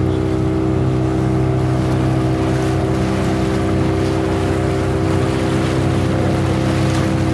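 Engine of an eight-seater motorboat running at a steady cruising speed: a constant, even drone with a hiss over it.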